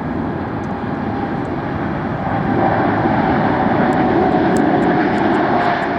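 Boeing 747 jet engines on takeoff: a loud, steady noise with a high whine that sinks slightly in pitch, swelling louder about two and a half seconds in.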